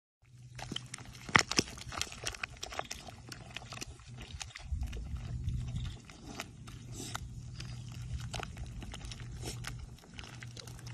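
Wet mud squelching and slapping in many irregular splats as an animal rolls and wallows in a deep mud puddle, over a steady low hum.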